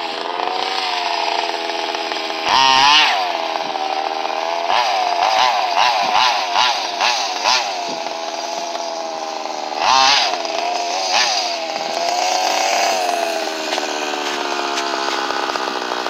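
Radio-controlled car's small engine running, revved in sharp bursts and a run of quick throttle blips, then settling to a steady idle near the end.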